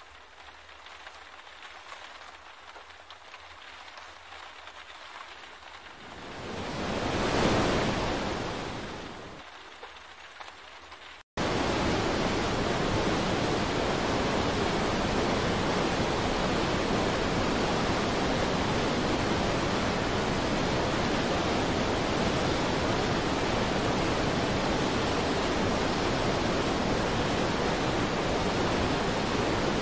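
Fast-flowing floodwater rushing in a river torrent, a loud steady noise that begins abruptly about eleven seconds in. Before it comes a quieter stretch of rain-like hiss with one swell of sound about seven seconds in.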